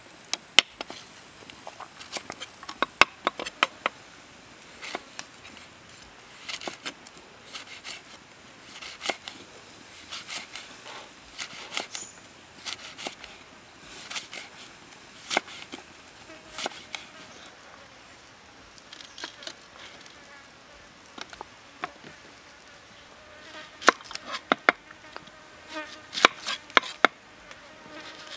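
Chef's knife chopping on a thick wooden chopping block, sharp taps in quick clusters with short pauses between, as chilies are sliced and then an onion is cut. Insects buzz in the background.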